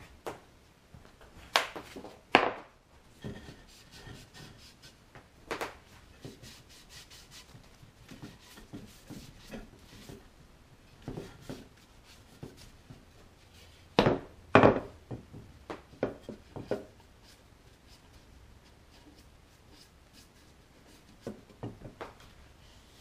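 Hardwood chair legs and stretchers knocking against a wooden workbench as the chair frame is handled, with a cloth rag rubbing over the wood between the knocks as excess glue is wiped from the joints. A pair of sharp knocks a little past halfway is the loudest.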